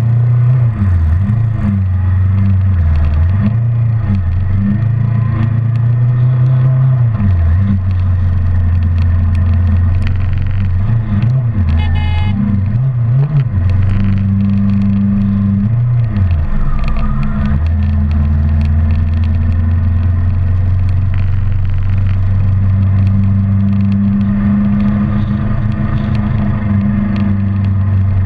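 Kawasaki Ninja 650R's parallel-twin engine running at road speed, heard from the rider's own bike with wind rush on the microphone. The engine note rises and falls with throttle and gear changes through the first half, then holds steady.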